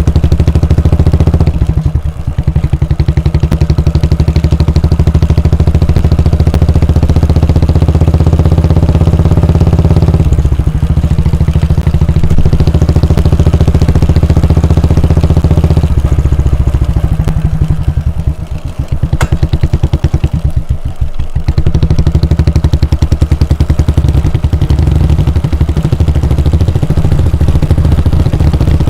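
Royal Enfield Bullet 350's 349 cc air-cooled single-cylinder engine thumping through its exhaust while riding, in fast even pulses. The throttle eases off briefly a few times, about two seconds in, around ten seconds, and twice between sixteen and twenty-one seconds, and the engine pulls again each time.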